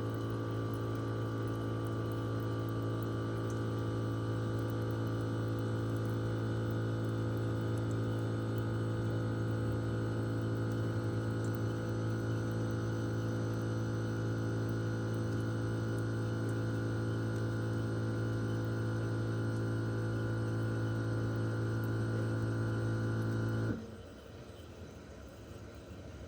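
Twin-rotary inverter compressor of a Toshiba RAS-4069AV air-conditioner outdoor unit running in defrost mode with the fan stopped: a steady tonal hum. It shuts off abruptly a couple of seconds before the end, leaving a faint hiss.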